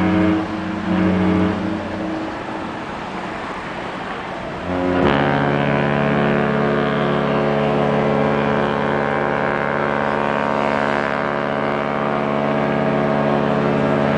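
Cruise ship horns in an exchange of blasts. One deep horn blast dies away about two seconds in. A second long, steady blast starts abruptly about five seconds in and is held, its several pitches sounding together like a chord.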